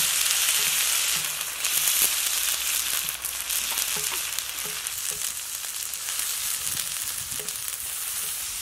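Chopped tomatoes sizzling in hot oil with garlic and ginger on a large flat black pan over a wood fire, the sizzle fading slowly as they cook down. A wooden spatula stirs and scrapes across the pan now and then.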